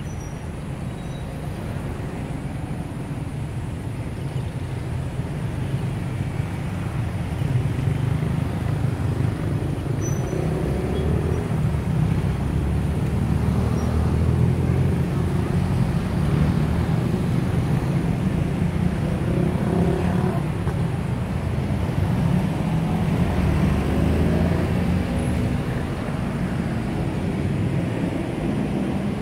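A low engine and traffic rumble that swells a few seconds in, stays strong through the middle and eases off near the end.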